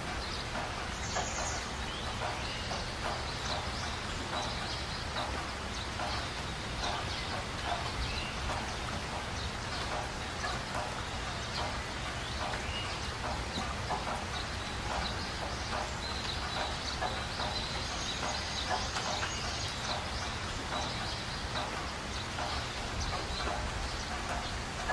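Outdoor ambience: a steady low rumble with many short, irregular ticks throughout and faint high chirping now and then.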